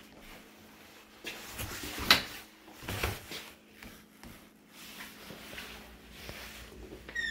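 Scattered knocks and bumps from someone moving about in a small bathroom, the loudest a sharp knock about two seconds in, then a short falling squeak at the very end.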